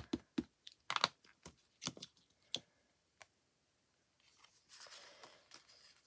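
An ink pad dabbed again and again onto a rubber stamp on an acrylic block to ink it, making irregular light taps and clicks. About four seconds in comes a soft rustle as the stamp and paper are handled.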